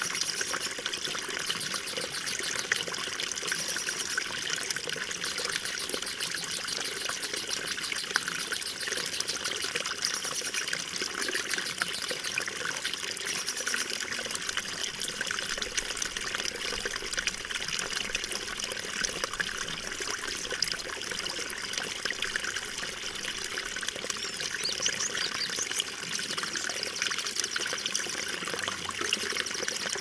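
Running water trickling and splashing steadily, a bright, even splashing with no pauses.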